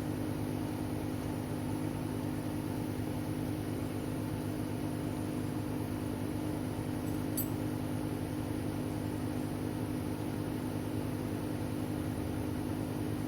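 1997 Toyota Camry engine idling steadily with the air-conditioning blower running, heard from inside the cabin; the owner thinks the idle sounds like a vacuum leak. A small click about seven seconds in.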